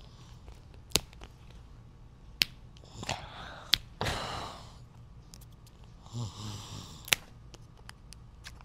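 Wrapping tape being picked at and peeled off a plastic toy capsule ball: a few sharp clicks of fingernails on tape and plastic, and two short ripping rasps as strips come away.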